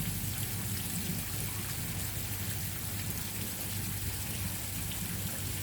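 Steady hiss of water, like rain falling or water splashing into a pond, over a low steady hum.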